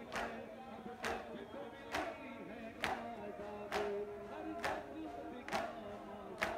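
A crowd of men chanting a noha lament in unison, with sharp matam strokes of hands slapped on chests together at an even beat, about one every second.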